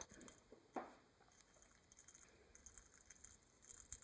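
Near silence: quiet studio room tone with two faint sharp clicks in the first second, then faint irregular light ticking.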